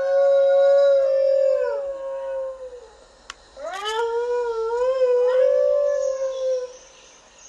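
Dingo howling: a long howl that slides down and dies away about three seconds in, then a second howl that rises, holds steady and tails off near the end.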